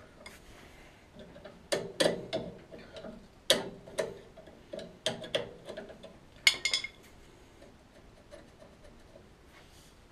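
Sharp metallic clicks and taps, about a dozen at irregular intervals and thinning out near the end, from the freshly lubricated throttle lever and linkage of an old Suffolk Punch 43S petrol lawnmower being worked back and forth now that it is no longer seized.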